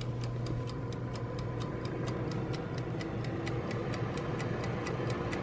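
Mechanical wind-up timer on a countertop halogen convection oven ticking steadily, about five ticks a second, with the oven's steady hum underneath as it heats.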